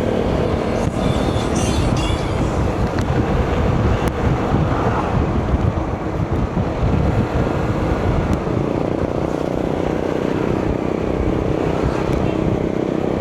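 Motorcycle being ridden along a road: steady engine and road noise with rumbling wind on the microphone.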